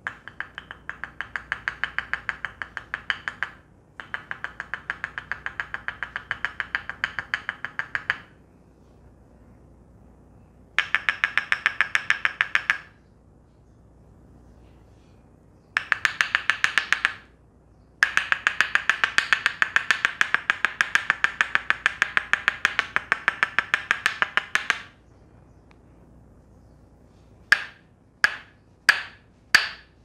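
Tok Sen massage: a wooden mallet rapidly tapping a wooden stick held against the client's neck, giving ringing wooden clacks. The clacks come in fast runs of a few seconds with short pauses between, and slow near the end to single strokes about two a second.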